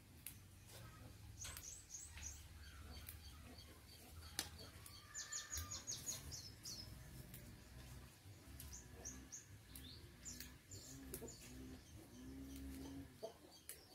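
Birds chirping faintly: scattered high chirps, a quick rapid run of them about five seconds in, and a few lower calls near the end.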